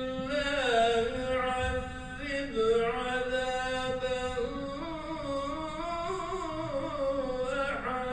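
Islamic religious chanting by a single voice, unaccompanied, drawing out long held notes that glide and turn ornamentally from one pitch to the next.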